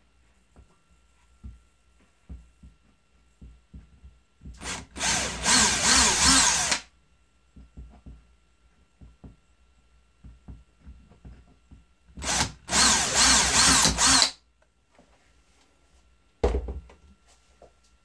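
Hand-held electric drill run in two bursts of about two seconds each, each starting with a few short stutters, with light knocks and taps between and a short low thump near the end.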